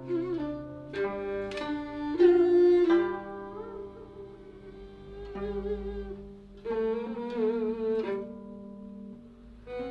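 Guzheng and yehu (coconut-shell fiddle) playing a slow Cantonese melody together: sharply plucked zither notes under the fiddle's sustained, wavering bowed line.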